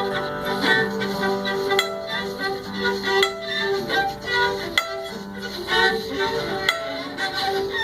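Solo fiddle playing train imitations, holding a drone under double-stopped notes with sharp bowed accents every second or so, in the manner of a steam train at the station.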